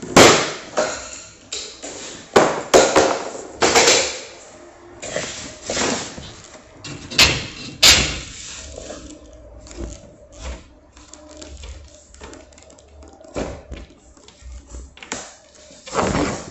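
Irregular sharp knocks and clacks of floor planks being handled and fitted into place, with quieter handling noise between. The loudest knocks come near the start and again about eight seconds in.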